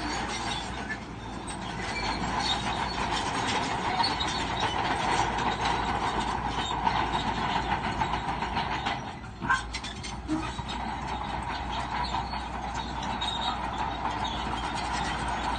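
Crawler bulldozer at work: the diesel engine runs steadily while the steel tracks clank and squeal. It eases briefly a little over halfway through, with a few sharp knocks.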